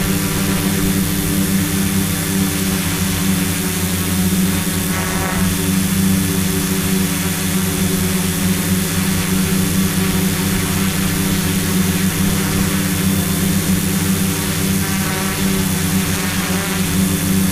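Hexacopter's six electric motors and propellers running steadily at hover, heard close up from the camera on board: a steady multi-tone hum with a thin high whine above it.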